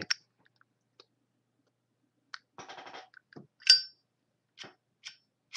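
Zippo lighter being handled: a string of small metal clicks and one loud, ringing metallic clink a little past the middle, typical of a Zippo's hinged lid snapping open or shut.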